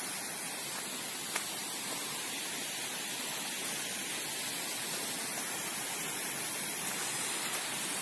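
Mountain waterfall and its stream: falling water giving a steady, even rushing hiss.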